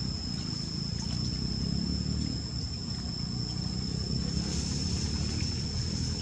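Steady low rumbling noise, with a constant thin high-pitched whine above it and a few faint ticks.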